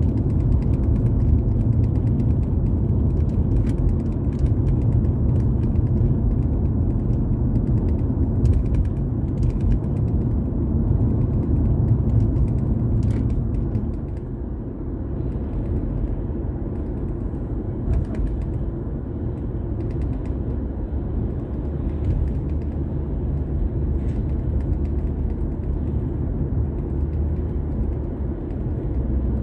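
Car driving, heard from inside the cabin: a steady low road-and-engine rumble with scattered creaks and clicks. The rumble eases about halfway through.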